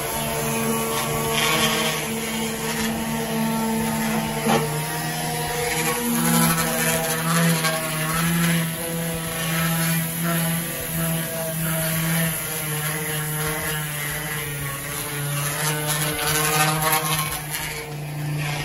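Electric random orbital sander running against a truck's metal bumper, sanding it down for paint, its motor tone shifting a little as it is pressed and moved over the surface.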